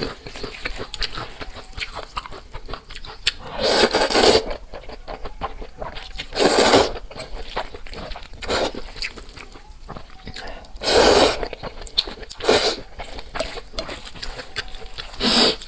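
Close-miked mukbang eating of dalu mian (noodles in a minced-meat chili sauce): steady wet chewing, broken about six times by loud, short noodle slurps.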